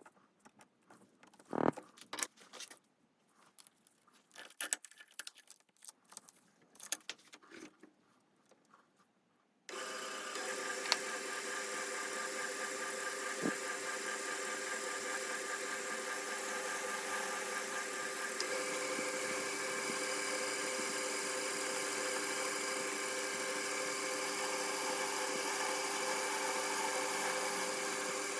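Scattered clicks and knocks, then about ten seconds in a TV-16 benchtop lathe switches on and runs steadily, a machine hum with several steady tones.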